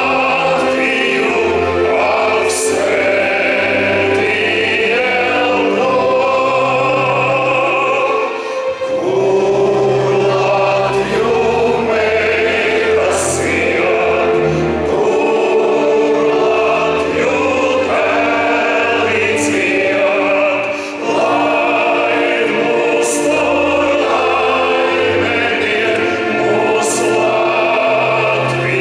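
Choir music, many voices singing long held notes, with a few brief high crashes.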